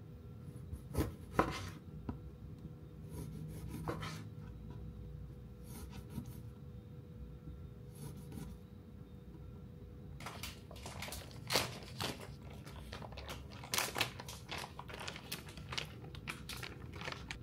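Short clicks, taps and rustles of things being handled, a few at first, then coming thick and fast over the last several seconds.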